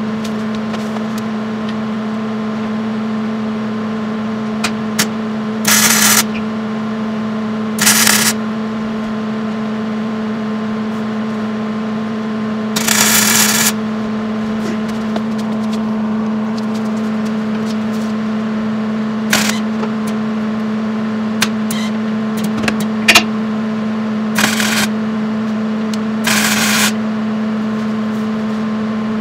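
Electric welder laying short tack welds: a steady hum from the welder, broken about five times by brief bursts of arc crackle, with scattered sharp spatter pops.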